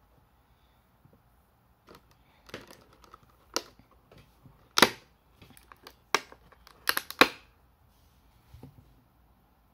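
Hard plastic clicking and clacking as small toy accessory parts are taken out of a plastic packaging tray and handled: a run of sharp separate clicks, the loudest about halfway through and a quick cluster around seven seconds in.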